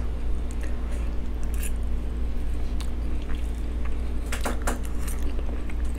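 Metal fork squishing into a soft, cheese-loaded baked potato, with a few sharp clicks against the board about four and a half seconds in, over the steady hum of an electric fan.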